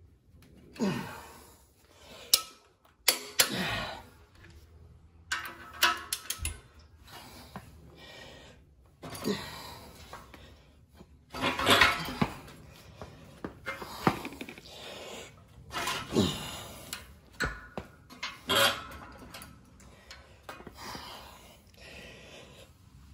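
Torque wrench and socket clinking and clicking on the bolts of a Dana 44 ring gear as they are torqued to 135 ft-lb: irregular sharp metal clicks and knocks every few seconds, with scraping in between.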